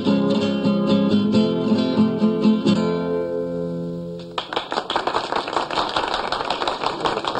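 Acoustic guitar played fingerstyle in a quick, even rhythm, ending on a chord that rings out and fades. A little over four seconds in, a small group starts clapping.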